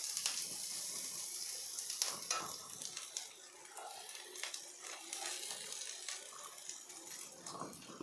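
Onions and green chillies sizzling in oil in a nonstick pan, with clicks from a spatula stirring and chopped vegetables tipped in from a bowl.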